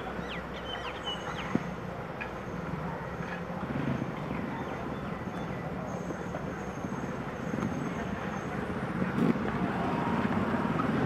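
Steady low rumble of a diesel-hauled passenger train moving away, mixed with road traffic, with a few short bird chirps early on. A motor scooter's engine grows louder near the end.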